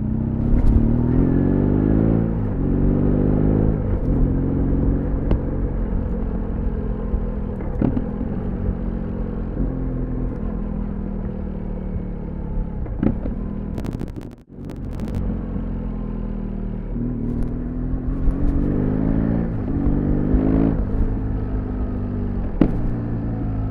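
BMW R1200GS boxer-twin engine under way, pulling up through the gears: its pitch climbs and drops back at each shift. A few sharp pops from the exhaust come in between, and the sound cuts out briefly about halfway through.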